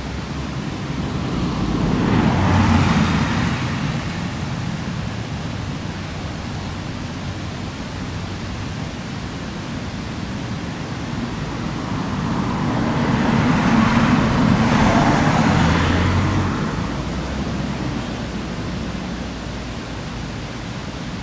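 Two road vehicles pass by, one about two to four seconds in and another from about twelve to sixteen seconds in, each swelling up and fading away, over a steady hiss.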